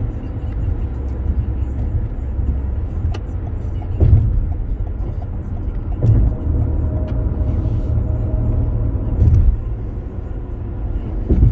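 Car driving at highway speed, heard from inside the cabin: a steady low road and engine rumble, with a few louder thumps from the road surface, about four seconds in, six seconds in, nine seconds in and near the end.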